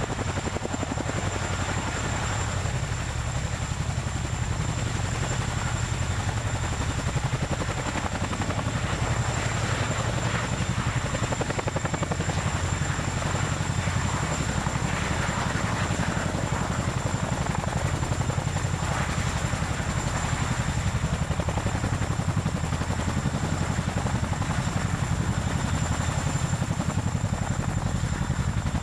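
Boeing CH-47 Chinook tandem-rotor helicopter hovering low and coming in to land. Its two rotors make a steady, fast chop over its twin turboshaft engines, with a high steady whine.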